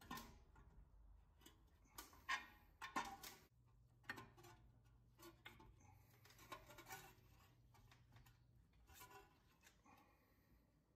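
Near silence broken by faint, scattered clicks and knocks of metal parts as a brake pad is wrestled into the caliper by hand, the loudest about two and three seconds in.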